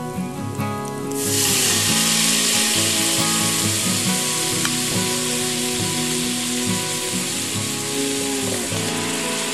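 Minced garlic frying in hot oil in a stainless steel pot. About a second in it jumps to a loud, steady sizzle that holds to the end, as the pot fills with bubbling liquid.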